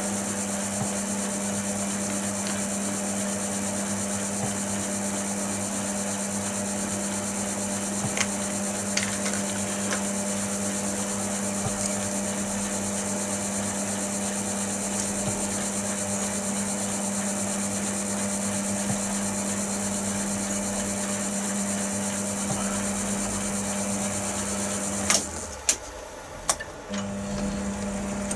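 Chester DB10 lathe running with a steady electric hum. Near the end it cuts out with a few sharp clicks, then starts humming again.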